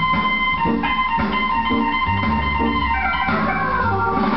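A vinyl record of 1960s Hammond organ jazz playing, with the organ over a band and bass line and a run of falling notes about three seconds in.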